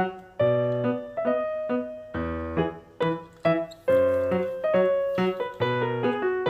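Background music: a simple keyboard melody of separate notes, each struck and fading, with a bass note under some of them.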